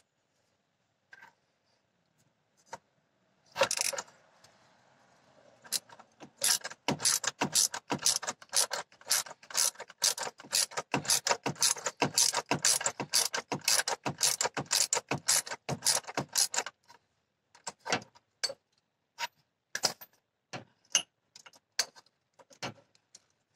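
Ratchet wrench clicking as it turns the forcing screw of a gear puller drawing a stuck AC compressor clutch pulley off its shaft. A few clicks at first, then quick runs of clicks for about ten seconds, thinning out near the end.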